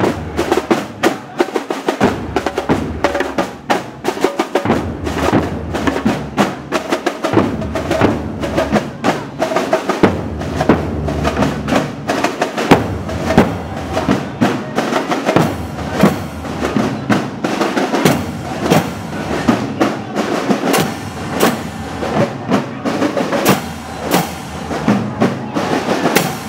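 Marching band drum line playing a steady marching cadence on snare drums and large bass drums, with rolls on the snares. In the last third, hand cymbals crash about once a second over the drumming.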